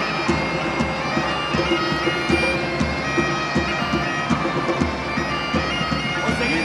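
Bagpipe music with a steady drum beat: a held drone under a piped melody.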